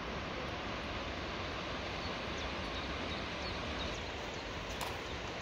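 Steady rushing of mountain waterfalls and stream water, with a few faint high bird chirps in the middle and a single brief click near the end.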